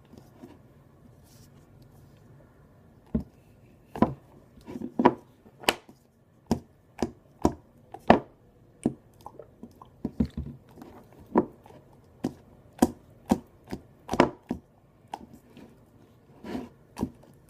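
Glue slime, freshly activated with borax and still very sticky, being kneaded and squeezed by hand, giving sharp wet pops and clicks. They start about three seconds in and come irregularly, one or two a second.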